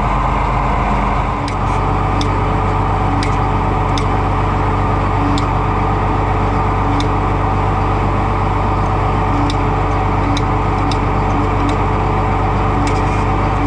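Oliver tractor engine running steadily after a start-up, with faint sharp ticks every second or so.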